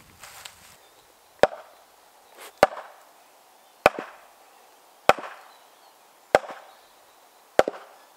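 Oak maul striking an axe set in an ash log, driving it in to split the log: six sharp wooden knocks, evenly spaced a little over a second apart.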